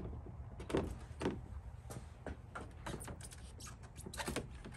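Scattered light clicks and taps of a plastic hood protector being handled and pressed into place against the edge of a truck's hood, over a low steady rumble.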